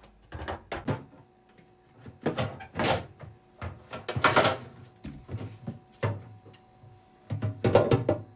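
A run of knocks, clunks and rattles from food containers and fridge shelves or drawers being handled and moved during a refrigerator clear-out. They are irregular and uneven in loudness, the loudest about four seconds in and near the end, over a faint steady hum.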